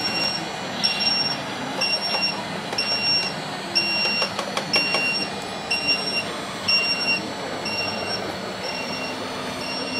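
Reversing alarm of a radio-controlled wheel loader: a high electronic beep about half a second long, repeating about once a second, over the low running noise of the model. A few sharp clicks come about halfway through.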